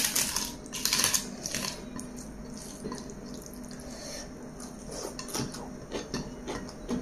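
A bare hand mixing and scooping chicken biryani with curry on a plate: wet, sticky squelches of rice with short clicks and taps of fingers on the plate. These are loudest in the first second or so, then sparser.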